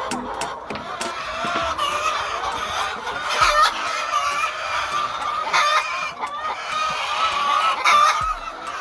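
A flock of laying hens clucking and calling together, many overlapping voices, with louder calls standing out now and then.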